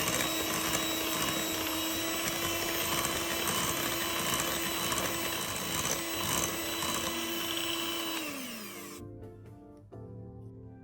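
Electric mixer running at a steady speed, beating creamed butter and sugar as coconut milk is mixed in; the motor winds down and stops about eight seconds in. Background music plays under it and carries on alone afterwards.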